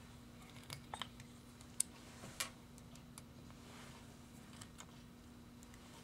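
Faint, scattered metallic clicks and light taps of a small screwdriver working the flathead screws out of the hub's dust cover and the screws being handled, with one sharper click about two seconds in, over a faint steady hum.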